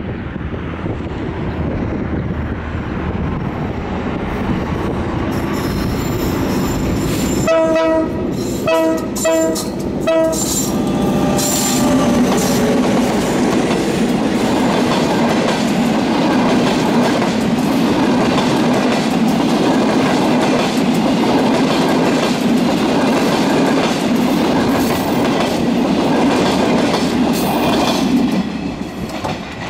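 Chinese-built CKD diesel-electric locomotive approaching under power, sounding four short blasts on its horn about eight seconds in, then passing close by at speed. Its engine is followed by the passenger coaches rolling past with wheel clickety-clack, until the train has gone by near the end.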